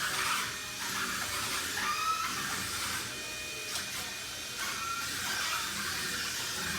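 Wall-climbing remote-control car's suction fan whirring steadily, with the drive motor whining up in short rising tones a couple of times.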